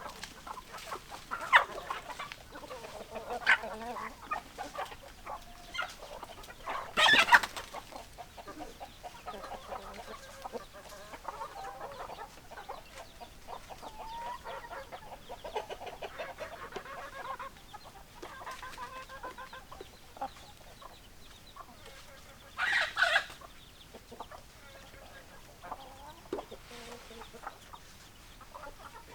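Chickens clucking throughout, a flock of hens calling over one another, with two much louder, short squawks about seven seconds in and again near twenty-three seconds.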